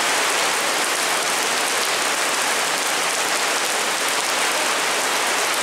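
Heavy rain pelting a paved street and its metal gutter grates, a steady, even hiss.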